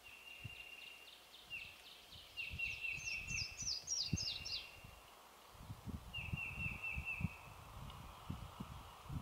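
Small songbirds singing: quick runs of short, high, repeated notes, and a higher run of downward-slurred notes about three to four seconds in. Low, irregular rustling and buffeting sounds run underneath.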